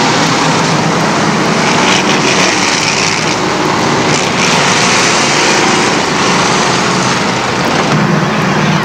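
A field of dirt-track street stock race cars' engines running together, a steady loud drone whose pitch drifts up and down as the cars roll around the oval.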